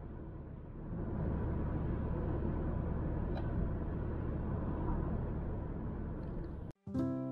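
A car driving along a road: a steady low rumble of engine and tyres. It cuts off suddenly near the end, and a piano note starts and rings on.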